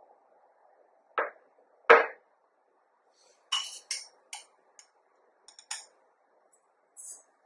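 Kitchenware handled on a counter, a stainless steel mixing bowl and a glass measuring jug: two knocks, the second the loudest, then a quick run of light, bright clinks and taps, and a brief soft rustle near the end.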